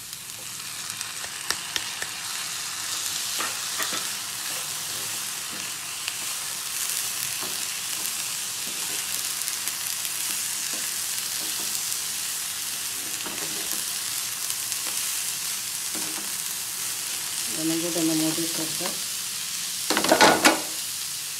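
Coconut, jaggery and chana dal filling sizzling in a nonstick frying pan as it is stirred and scraped with a plastic slotted spatula: a steady frying hiss with light scraping ticks. A loud knock comes about a second before the end.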